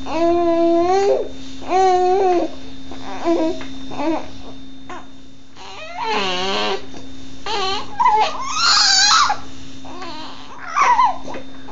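A baby's voice making drawn-out babbling calls, one after another, that turn louder and strained, like crying, from about eight seconds in. A steady low hum runs underneath.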